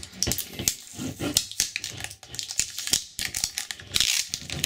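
Clear packing tape and plastic wrap on a LEGO Pick-A-Brick cup crackling and crinkling as a hand picks and pulls at it to open the cup: a rapid, irregular run of sharp crackles.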